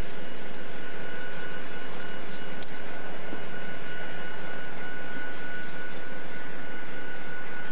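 Diesel-electric locomotive engine running, a steady even drone with a few faint clicks.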